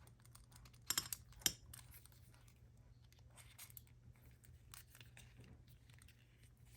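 Leather watch strap being fitted onto an Apple Watch Ultra: two sharp clicks close together about a second in, then faint light ticks and rustles of handling.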